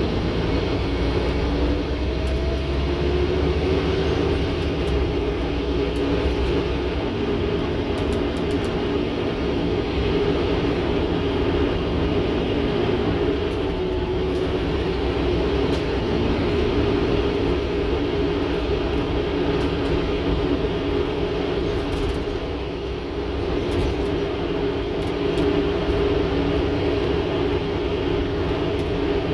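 Scania N230UD OmniCity double-decker bus under way, heard from inside the passenger saloon: the engine and drivetrain drone over road rumble, the engine note rising and falling as the bus pulls and eases off.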